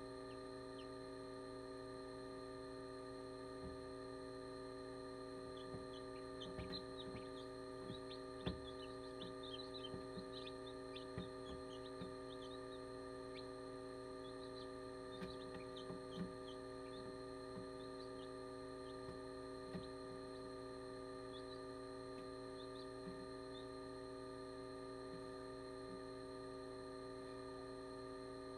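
Steady electric hum of an incubator, with faint, short, high chick peeps scattered through the middle and a few soft taps as newly hatched chicks peck and bump at a hatching egg.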